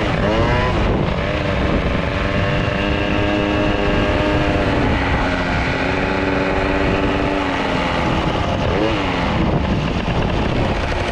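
Two-stroke moped engines running hard at a steady high pitch on the track, with wind noise underneath. The pitch swings briefly near the start and again about nine seconds in, as the throttle is eased and opened.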